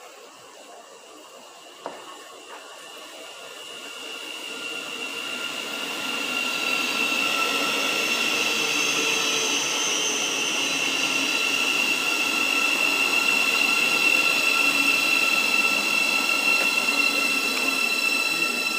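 Thameslink Class 700 electric multiple unit approaching and running along the platform. The rumble of wheels on rail swells over the first several seconds, then holds, with a steady high whine from its electric traction equipment.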